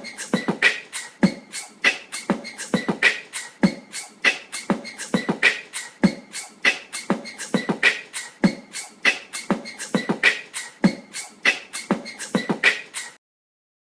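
Wobbly ceiling fan knocking and clicking in a steady rhythm: a louder knock about every half second with lighter ticks between. It cuts off suddenly about a second before the end.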